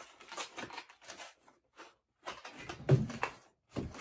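Cardboard frame of a Trane Envirowise QuickBox furnace filter rustling and scraping as its folded sides are popped out, then a heavy thump about three seconds in as it is set down on a table, and a lighter knock just after.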